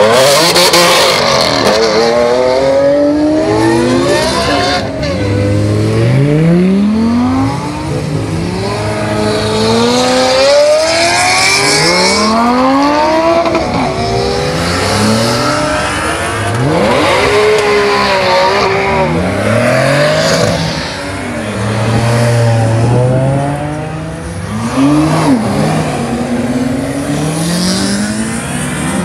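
High-performance car engines revving hard on a track, the pitch climbing and dropping again and again through gear changes and lifts off the throttle as cars accelerate and slow.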